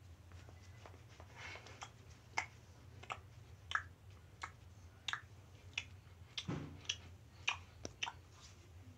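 A run of sharp clicks, about one every half second at irregular spacing, one of them with a deeper thump, over a faint steady low hum.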